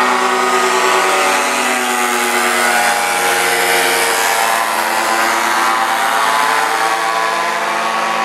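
Paramotor (powered paraglider) engine and propeller flying low overhead: a loud, steady, buzzing drone that cuts off suddenly at the end.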